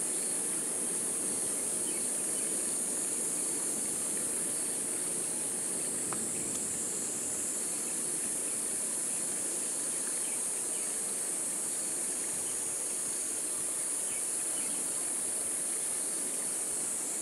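Insect chorus: a continuous high-pitched shrill buzz with no breaks, over a low steady rushing noise.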